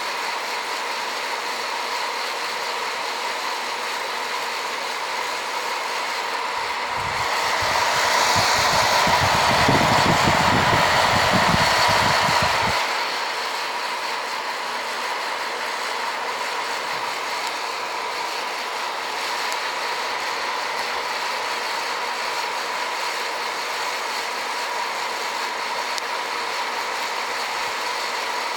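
Hot-air popcorn-popper-style coffee roaster running, a steady fan rush with a thin whine, as the beans tumble in a roast that has reached first crack. A little after six seconds in, a louder rush with low rumbling swells for about six seconds, then drops back.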